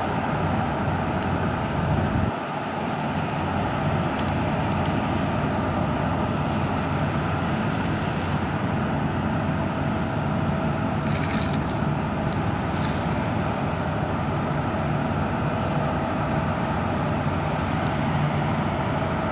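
Boeing 737 MAX 8's CFM LEAP-1B jet engines running steadily as the airliner rolls out after landing: an even noise with a faint steady whine.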